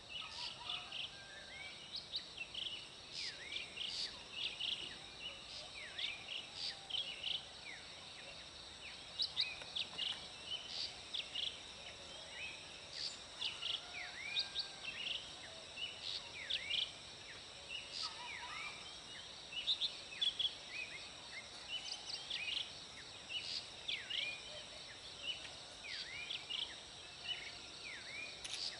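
Morning birdsong from many birds, with quick chirps and short falling whistles throughout, over a steady high insect drone.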